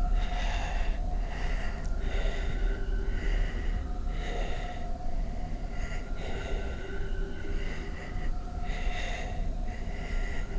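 A man breathing heavily through his mouth, in and out about once a second, over a steady low rumble.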